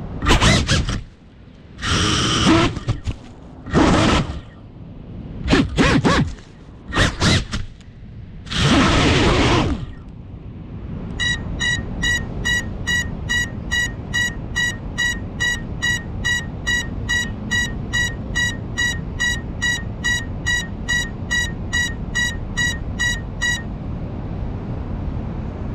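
Crashed FPV racing drone lying upside down in a bush: its motors spin up in several short bursts, the propellers whirring against the leaves. From about eleven seconds in, its lost-drone buzzer beeps steadily, about two high beeps a second, and stops after about twelve seconds.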